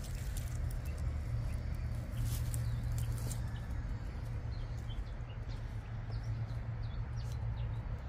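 A steady low rumble with scattered crackles and rustles of stiff pineapple leaves and dry mulch being handled. The crackles come mostly at the start and between about two and three seconds in.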